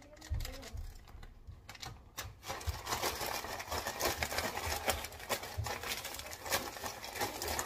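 A zip-top plastic bag holding chicken pieces and flour being shaken hard to coat the chicken: a few scattered rustles at first, then from about two and a half seconds in a fast, continuous rattling crinkle of plastic with soft thuds of the chicken inside.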